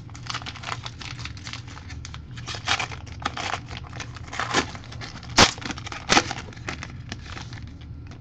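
Foil wrapper of a trading-card pack being torn open and crinkled by hand: a run of crackles, with two louder sharp crackles about five and six seconds in.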